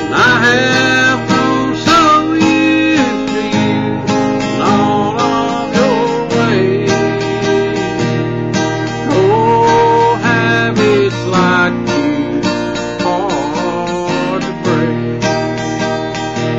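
Acoustic guitar strummed in a steady rhythm, with a man singing long held, wavering notes over it.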